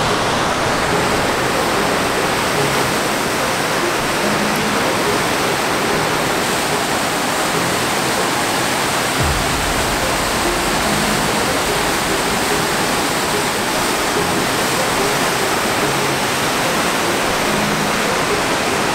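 Water pouring over a low river weir: a loud, steady rush of falling water.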